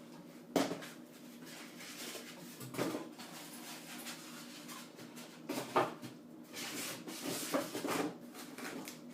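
Unboxing handling: a few knocks and thumps with rustling of packaging and papers, over a steady low hum.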